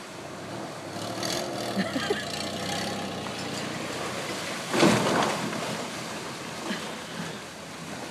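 Ford pickup truck's engine running as the truck reverses into the wall of an above-ground pool, with water gushing out over the pool's collapsed side. A loud burst of noise about five seconds in, as the truck's rear meets the pool wall.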